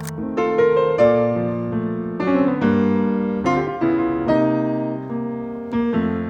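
Background piano music: chords and a melody line, the notes struck and left to ring. A brief sharp click right at the start.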